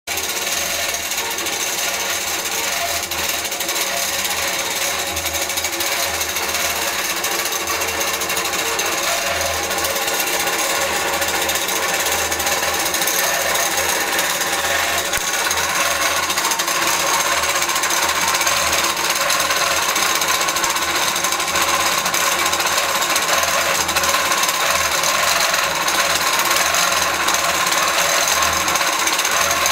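Innova longarm quilting machine running and stitching rapidly and continuously as its head is guided by hand across the quilt, slightly louder in the second half.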